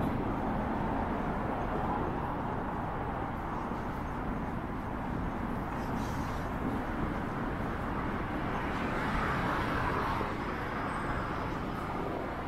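Busy city street ambience: a steady wash of road traffic and general street noise, swelling briefly about nine seconds in.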